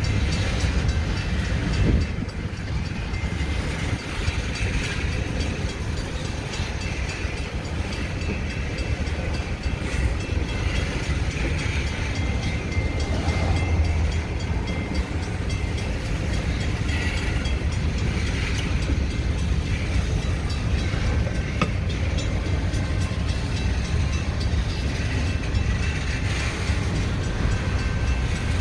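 Freight train of covered hopper cars rolling past, a steady low rumble of wagons on the rails, a little louder about halfway through.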